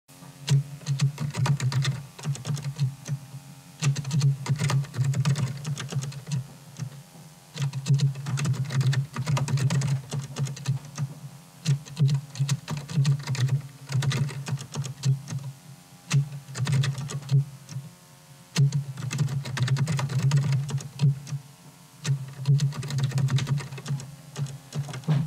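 Computer keyboard being typed on in quick bursts of keystrokes with short pauses between, over a low hum that swells with each burst.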